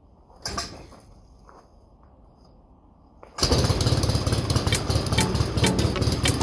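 Light airplane's piston engine being started for the first time after a rebuild with new pistons: a short burst about half a second in, then the engine catches about three and a half seconds in and keeps running steadily and loudly.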